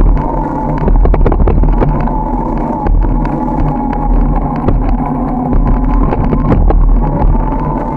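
Wind and road rumble on the microphone of a camera mounted on a moving bicycle, with a steady hum underneath and scattered rattles and knocks from bumps.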